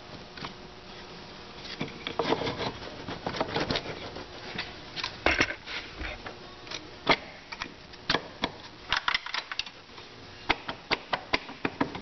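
Hard metal parts clicking and knocking irregularly as the driven sprocket support of a GM 440-T4 (4T60) automatic transmission is worked by hand into the transmission case. The loudest knocks come around the middle.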